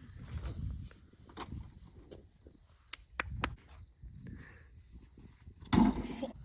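Outdoor ambience with a steady high chirring of insects, broken by scattered clicks and low rumbles and a louder thump near the end.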